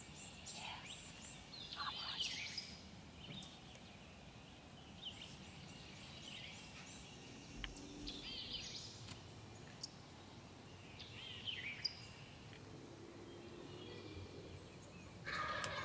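Songbirds singing in many short chirps and trills, with a wild turkey gobbling.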